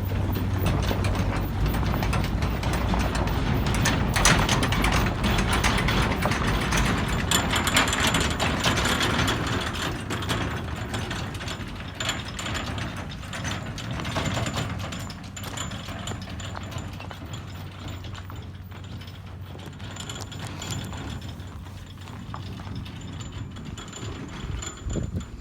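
A vehicle running slowly, with a steady low hum and dense mechanical rattling, louder for the first ten seconds or so and then fading.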